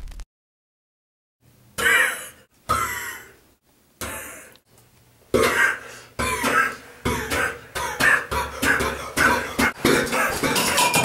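Two boys blurting 'Pehhh!' at each other: short, explosive, breathy vocal bursts, a few spaced out at first, then coming fast, about two a second, from about five seconds in.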